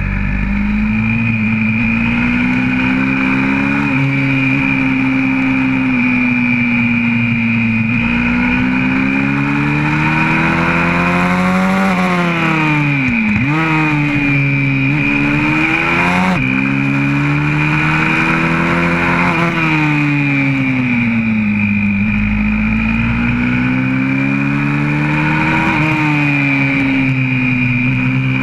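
Onboard sound of a YCF 125cc four-stroke pit bike engine at racing speed, its pitch rising and falling with the throttle through the corners. About 13 s in the revs fall steeply, then climb quickly again.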